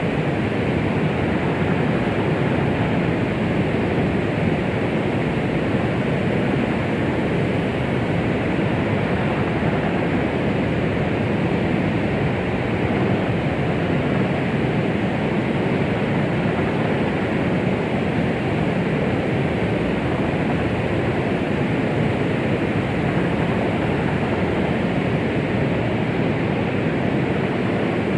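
Steady white noise of the kind played to soothe a baby: an even, unchanging rushing hiss with most of its weight in the low and middle range and little in the highest treble.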